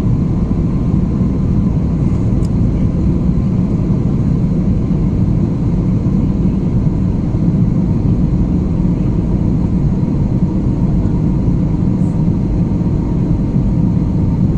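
Steady airliner cabin noise: the jet engines and rushing airflow heard from inside the passenger cabin, a deep, even drone with a faint high tone over it.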